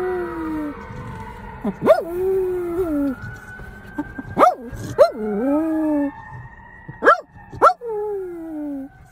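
A dog whining and howling in about five calls, some in pairs. Each jumps quickly up in pitch, then slides slowly down in a long falling whine.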